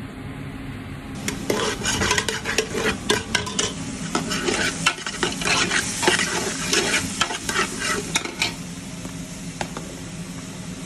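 Food frying in a pan while a metal utensil stirs it, scraping and clinking rapidly against the pan from about a second in until near the end, after which the sizzling goes on alone. A steady low hum runs underneath.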